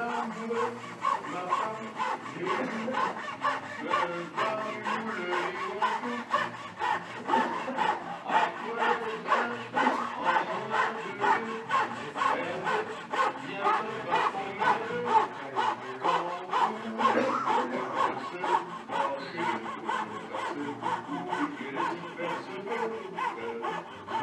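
Fret saw on a marquetry chevalet cutting through a wood-veneer packet, with a steady back-and-forth rasp at about two to three strokes a second.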